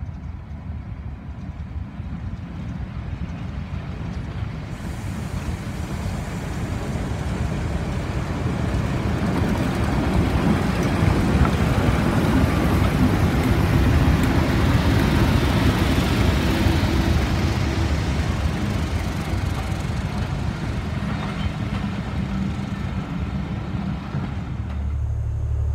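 BR Class 14 diesel-hydraulic locomotive D9521 runs slowly past close by, its engine and wheels on the rails growing louder to a peak about halfway through. The coaches behind then rumble past on the track as the sound eases a little.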